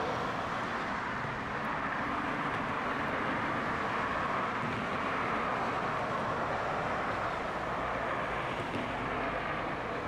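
Steady outdoor background noise: an even rush with no distinct events, of the kind heard from distant traffic.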